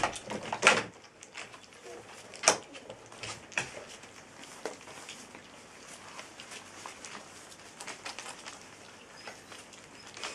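Litter of young puppies eating wet chunk food off a plate, their first solid food: wet smacking and chewing with quick clicks and ticks, a few sharper knocks in the first few seconds.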